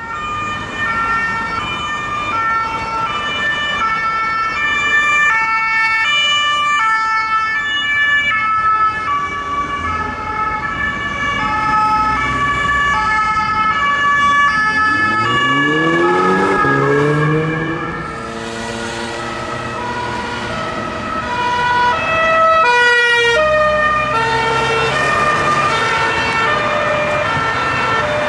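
Two-tone police sirens alternating between a high and a low note about twice a second, with more than one siren sounding at once and out of step. About halfway through, a car engine is heard accelerating under them.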